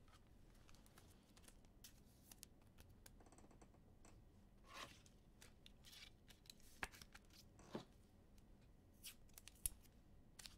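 Near silence: room tone with faint scattered clicks and a few sharper ticks in the second half.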